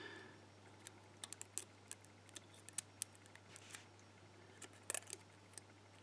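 Faint, sharp metal clicks and ticks, irregular and close together, as a small tool works at the cam tail piece on the back of a Ruko lock cylinder's plug to take it off.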